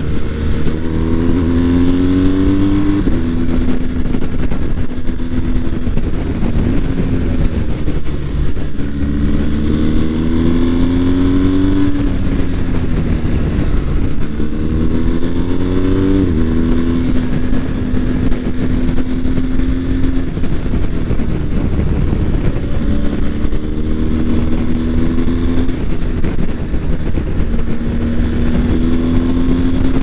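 BMW R1250 GS boxer-twin engine heard from the rider's seat while riding, rising in pitch as it accelerates several times, with steadier stretches in between, over a constant rush of wind.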